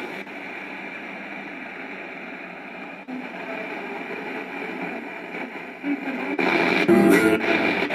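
FM radio receiver's audio tuned to a weak, distant station in the 93 MHz band: mostly hiss and static with little clear programme. The sound dips briefly about three seconds in as the frequency is stepped, and grows louder near the end. The weak, noisy reception is the sign of a fading sporadic-E opening.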